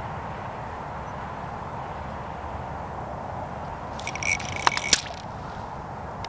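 Steady background hiss. About four seconds in, a short flurry of rustling and a few sharp clicks comes from the fishing line being handled by hand at the ice hole.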